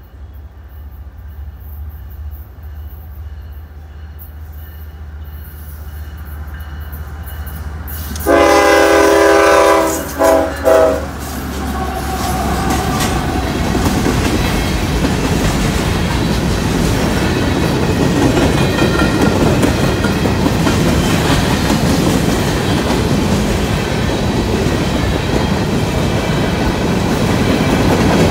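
Freight train coming through a grade crossing. A low rumble builds, then about eight seconds in the locomotive horn sounds one long blast followed by two short ones. From about twelve seconds the covered hopper cars roll past close by, their wheels clattering over the rails.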